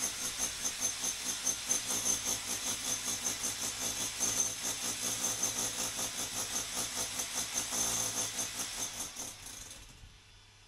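Hammer drill boring into concrete, a steady rattling drone that pulses about four times a second, winding down and stopping about nine to ten seconds in.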